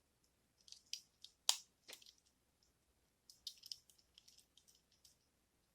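Small sharp clicks and ticks of a die-cast toy car's parts being handled and fitted back together by hand. A few louder clicks come about one to two seconds in, then a run of faint rapid ticks.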